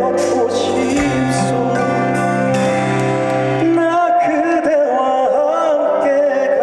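Korean trot song with a full accompaniment track. A male voice sings with a wide vibrato from about four seconds in.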